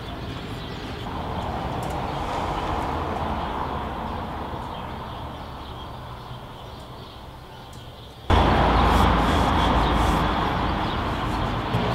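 Steady city ambience with a hum of distant traffic; about eight seconds in it jumps abruptly to a louder, deeper rumble.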